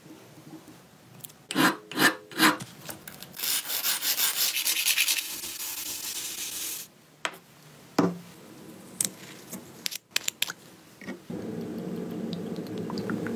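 Hand sanding on a sheet of sandpaper: a dry scraping hiss of strokes back and forth for about three seconds, after three sharp knocks. Near the end a steady low hum starts.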